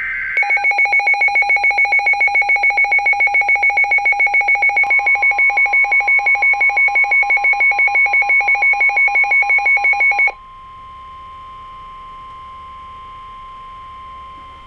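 Emergency alert attention tones. A loud, rapidly pulsing two-pitch alarm beats about six times a second for about ten seconds, then stops abruptly. About five seconds in, a steady single-pitch weather-radio warning tone joins and carries on alone, quieter, until it cuts off near the end.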